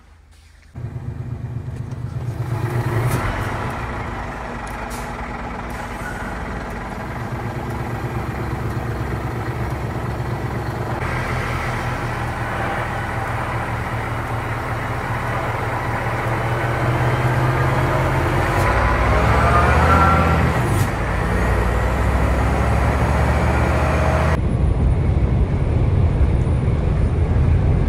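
Heavy truck's diesel engine running as the truck pulls away and drives on, heard from inside the cab. It comes in abruptly about a second in and revs up with rising pitch later on.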